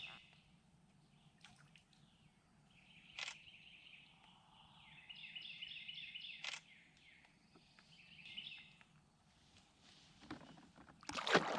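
Songbirds singing, with several repeated trilling phrases. There are a couple of sharp clicks in between, and a short burst of louder knocks and handling noise near the end.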